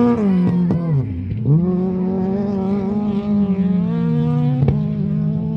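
Rally car engine running at high revs; about a second in the revs drop sharply and then climb straight back, holding fairly steady afterwards. A few sharp cracks, the loudest near the end.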